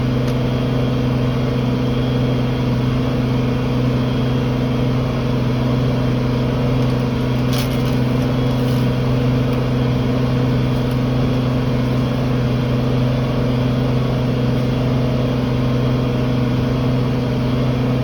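Farm tractor engine running at a steady, constant speed under load while pulling a tillage implement, a continuous even drone. A faint click sounds about halfway through.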